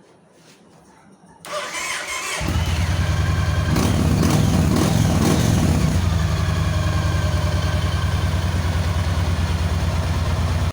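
Yamaha XV1900 Raider's V-twin engine being started: the starter cranks for about a second, then the engine catches and runs steadily, briefly louder a couple of seconds after it fires. It starts normally now that the faulty starter relay has been replaced.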